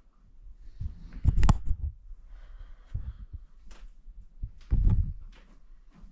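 Camera handling noise: dull low thumps and knocks against the microphone, heaviest about a second and a half in and about five seconds in, with scattered clicks between.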